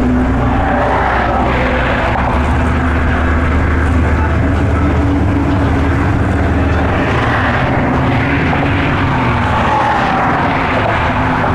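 Motorboat engine running steadily underway: a low, even hum with a steady drone, and rushing noise over it.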